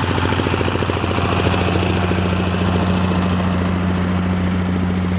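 Power rice thresher running steadily, its engine with a fast, even knocking pulse; a steady low hum joins in about a second in.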